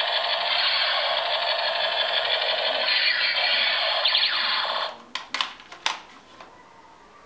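Battery-powered plastic toy ray gun firing its electronic sound effect, a harsh buzzing noise with warbling tones that cuts off suddenly about five seconds in. A few light plastic clicks follow.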